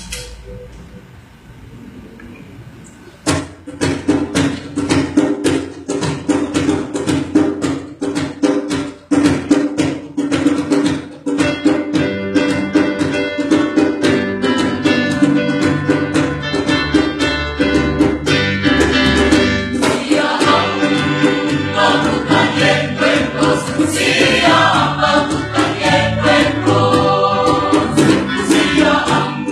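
Mixed choir singing with instrumental accompaniment, starting about three seconds in after a quiet lead-in and growing fuller partway through.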